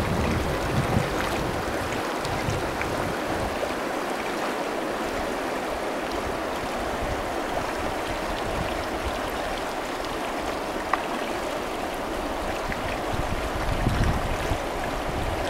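Shallow river water running over a stony bed: a steady, even rush of flowing water. Brief low rumbles come near the start and near the end.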